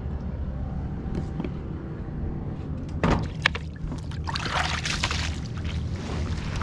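A wet chenille wash mitt scrubbing and splashing water on an inflatable dinghy's hull, starting about three seconds in. A steady low engine hum runs underneath.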